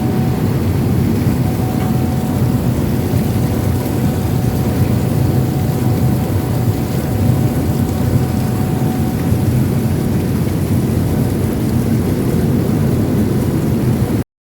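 1992 Eima industrial washing machine with a 900 mm drum running: a steady, loud low rumble with a faint thin whine over it, cutting off suddenly near the end.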